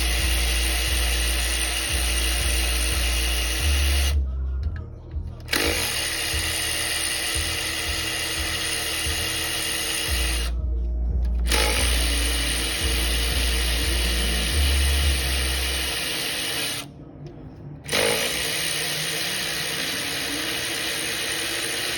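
Cordless power driver spinning out the valve cover bolts on an LS4 V8, running in four long runs of several seconds each with short pauses between.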